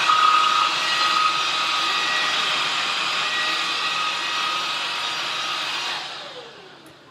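Jashen V16 cordless stick vacuum running steadily with a motor whine while picking up dog hair. About six seconds in it is switched off and the motor spins down with a falling whine.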